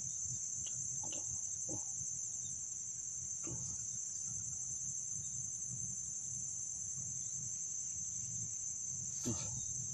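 Steady high-pitched insect chorus, one continuous trill, over a low steady rumble, with a few faint taps and a sharper click near the end.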